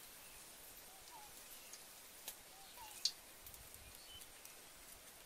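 Quiet outdoor ambience with two faint rising bird chirps, about a second in and again around two and a half seconds, and a few small ticks, the sharpest a single click about three seconds in.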